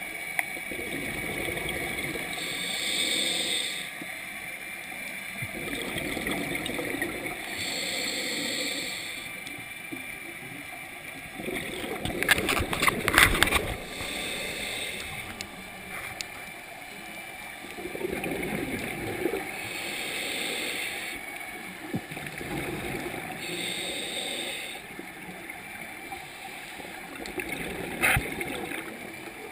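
Scuba diver's regulator breathing heard underwater: a hissing breath and then a bubbling, gurgling exhale, repeating every four to five seconds. A louder burst of crackling comes about twelve seconds in, and a short click near the end.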